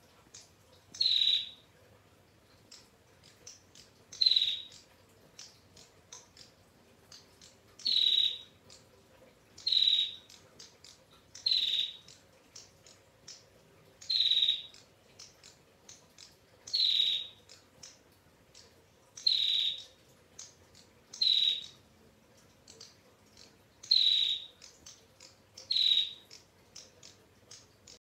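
Female prenjak (prinia) giving its 'ngetir' call: short rattling trills, eleven in all, about one every two to three seconds, with faint ticking notes in between.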